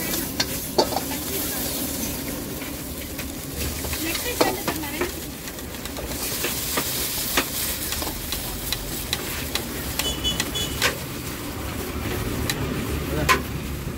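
Metal ladle and spatula scraping and clanking against a wok while vegetables are stir-fried, over a steady sizzle, with sharp clangs every second or two.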